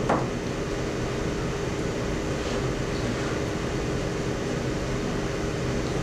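Steady room tone: a constant low hum and hiss that does not change, with one brief faint sound right at the start.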